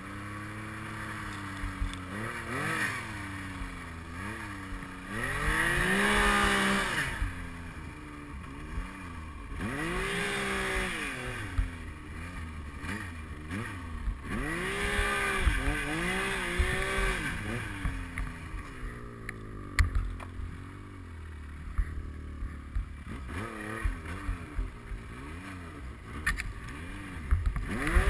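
Yamaha Nytro X-Ride snowmobile's four-stroke three-cylinder engine revving up and down over and over as it is ridden through deep powder, its pitch rising and falling with each burst of throttle. A few sharp knocks come through as the sled works through the snow.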